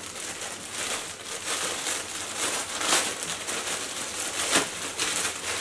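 Clear plastic clothing bag crinkling and rustling as it is handled and pulled open, unevenly, with a few louder crackles along the way.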